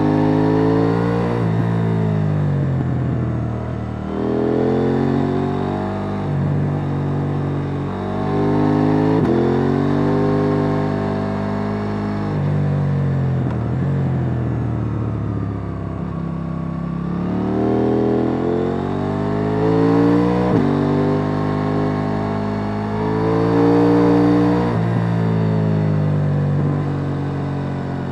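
KTM 890 Duke R's parallel-twin engine on its stock exhaust, accelerating and rolling off again and again, its note climbing and falling every few seconds with sudden drops in pitch at the gear changes.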